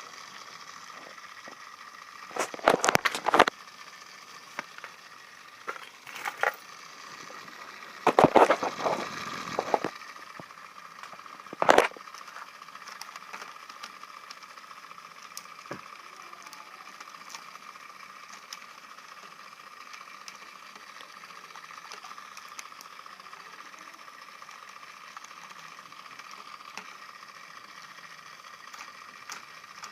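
Small toy top-spinner DC motor of a homemade battery-powered mini ceiling fan running with a steady, faint high whine. Three loud sudden bursts of noise break in about two and a half, eight and twelve seconds in.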